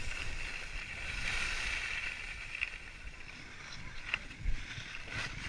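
Skis sliding and scraping over snow in a steady hiss, with wind buffeting the microphone. A few sharp clicks and a thump in the second half.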